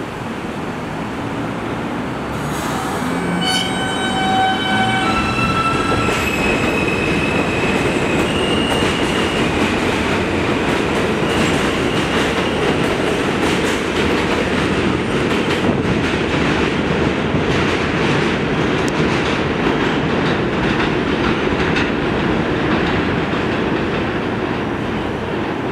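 R160A-1 subway train accelerating out of an elevated station. Its electric propulsion gives a series of whine tones that step upward over the first several seconds. Beneath and after them runs a loud, steady rumble and clatter of wheels on the elevated track.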